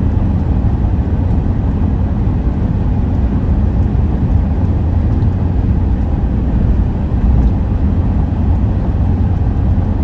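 Camper van driving at motorway speed, heard from inside the cab: a steady low rumble of engine and tyre noise.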